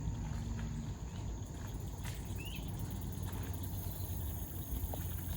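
Outdoor ambience: a steady low rumble with hiss, and a short high chirp about two and a half seconds in.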